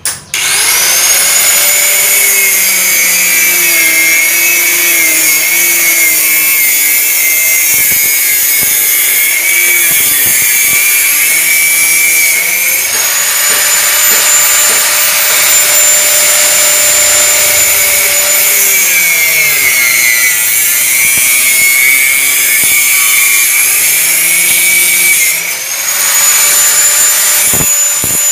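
Bosch angle grinder with a cut-off disc spinning up just after the start and cutting through steel angle iron: a loud, steady high whine over a harsh grinding noise. Its pitch sags and recovers as the disc is pressed into the cut, with a brief lull in the cut near the end before it bites again.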